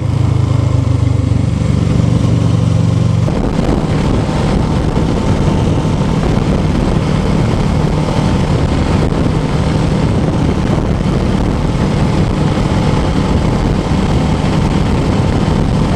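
2007 Kawasaki Ninja 650R's parallel-twin engine running while it is ridden, mixed with wind and road noise on the helmet microphone. About three seconds in, the steady engine tone gives way to a rougher, noisier sound that runs on to the end.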